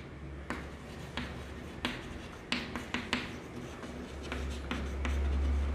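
Chalk writing on a chalkboard: a string of short taps and scrapes as letters are stroked out, about one every half-second to second. Under it a low steady hum swells louder near the end.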